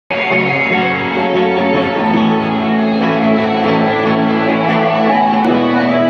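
Acoustic guitar being played, chords ringing out, with a change of chord about two seconds in and another near the end.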